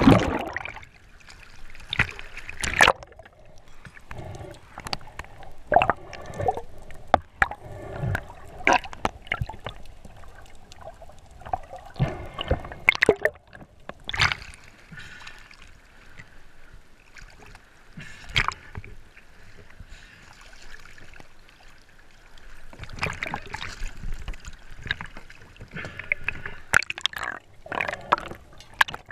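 Water sloshing, gurgling and splashing around a helmet or body-mounted action camera on a snorkelling spearfisherman, switching between underwater and surface. It is broken by irregular sharp splashes and knocks.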